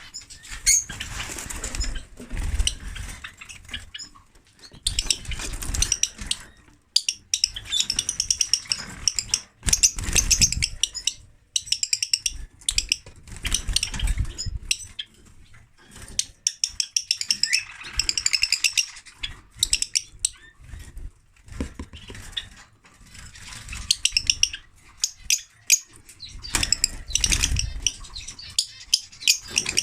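A group of lovebirds chattering, with rapid trains of shrill, high chirps in bursts of a few seconds, separated by brief lulls. A low rumble sits under several of the bursts.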